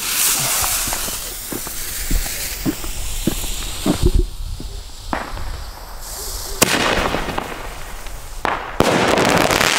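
Weco Fantastic 4 single-shot shell tube (Bombenrohr) being fired: the lit fuse hisses, a heavy low thump about four seconds in launches the shell, a sharp bang follows about two and a half seconds later, and a loud rush of noise fills the last second.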